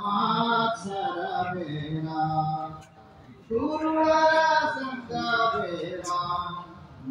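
A man singing a devotional song, holding long notes, with a short pause about three seconds in.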